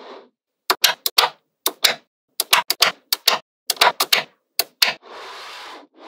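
Small magnetic balls snapping together: about eighteen sharp clicks in quick clusters of two to four, followed near the end by about a second of steady scraping noise.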